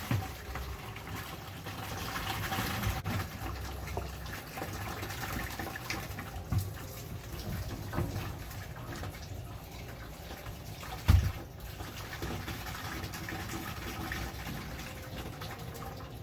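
Water pouring out of a sump pump discharge pipe into a bucket as the check valve fitting is worked loose, a continuous splashing flow. A few knocks sound over it, the loudest about eleven seconds in.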